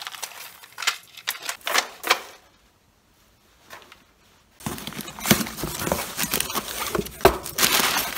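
Plastic bead necklaces clicking together as they are lifted off over the head. After a short quiet gap, brown packing paper rustles and crumples steadily as hands dig into a cardboard box.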